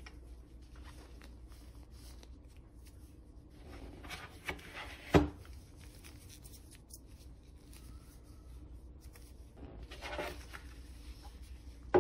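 Gloved hands handling a phone's cardboard box and packaging: quiet rubbing and rustling, with one sharp knock about five seconds in and another rustle near the end.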